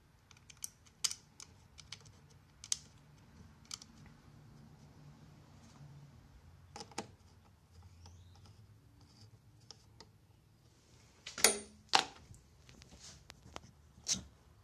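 Valeo LAD5G HID ballast and headlight housing being handled and fitted together: irregular light clicks and knocks, with a few louder knocks near the end.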